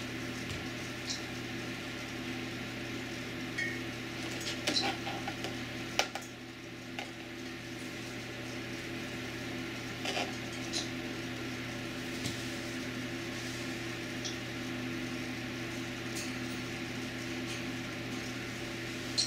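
Scattered small clicks and taps as 9-volt batteries and alligator clips are handled and connected by a glass jar on a table, over a steady electrical hum.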